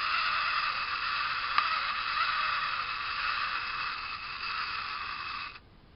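Small Soldiers Burger King toy figure working its arm-moving function, its mechanism giving a steady high buzzing whir that stops suddenly near the end.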